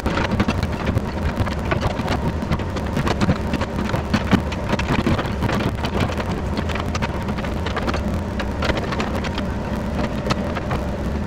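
Yanmar ViO50 mini excavator's diesel engine running under load while its bucket digs into rocky clay, with a steady stream of scraping and clattering dirt and stones.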